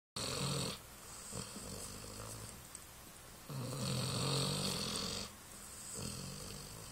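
Snoring: a short snore at the very start and a longer, louder snore about three and a half seconds in, with quieter breaths between.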